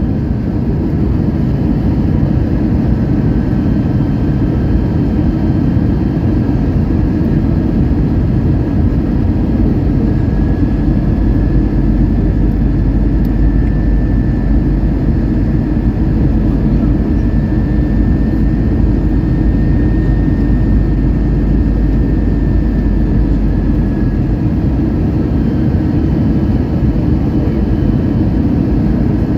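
Airliner cabin noise: the engines running with a loud, steady low rumble and a faint whine that rises slightly in pitch in the middle and then eases back.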